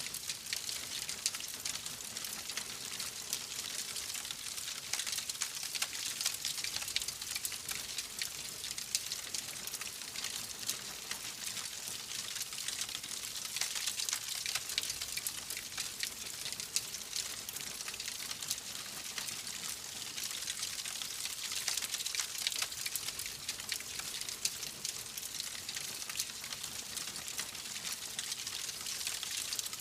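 Wood fire crackling steadily in a fireplace: a continuous hiss dense with small pops and snaps.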